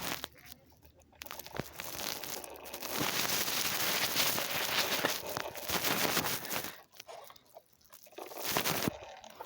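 Toy remote-control pickup truck driving, its small electric motor and plastic gears running with a raspy buzz for several seconds, then briefly again near the end.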